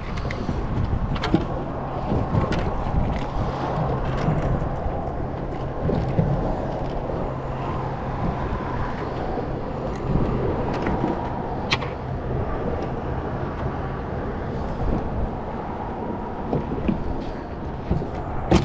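Steady low motor hum under wind and water noise, with a few sharp clicks.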